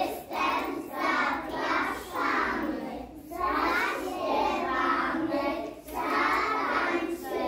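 A group of children singing together, in phrases a few seconds long with brief breaks between them.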